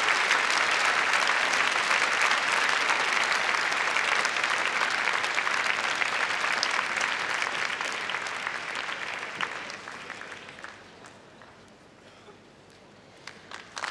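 Large crowd applauding steadily, then dying away over the last few seconds to a few scattered claps.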